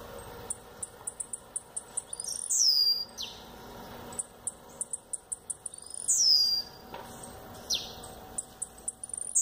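Male blue-black grassquit (tiziu) singing: a run of quick, high ticks, then a loud downward-sweeping high note. The phrase comes twice, about 2.5 and 6 seconds in, and a third begins at the very end.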